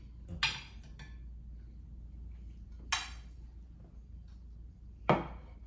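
Cutlery and dishes clinking during a meal: three sharp clinks, the loudest near the end, over a steady low hum.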